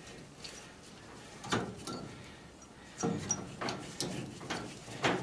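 Metal clanks and knocks as tools and a pipe fitting are handled: one sharp hit about a second and a half in, then a quick run of several more in the last two seconds.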